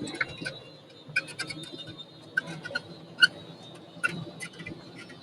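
Footsteps: irregular sharp clicks and taps, a few a second, over a faint steady high-pitched hum.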